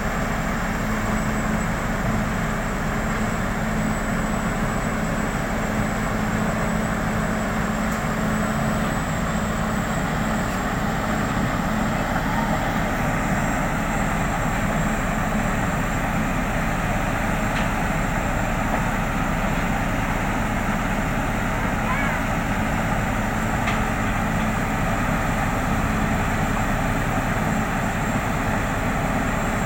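Heavy machinery engine running steadily, with a constant hum and a faint high whine.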